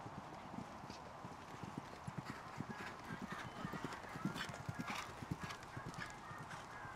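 Hoofbeats of a grey horse cantering on a sand arena surface: a steady rhythm of dull thuds, louder in the middle.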